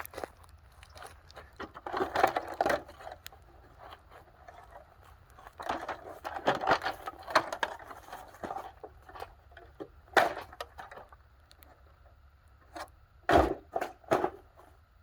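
Parts of a dehumidifier being scraped, pried and banged while it is broken apart: uneven bursts of scraping and clatter, a sharp knock, then two louder bangs near the end.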